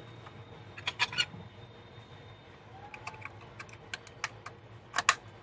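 A dozen or so light, sharp clicks and taps at uneven intervals, some in quick pairs, from a camcorder and small tools being handled during repair.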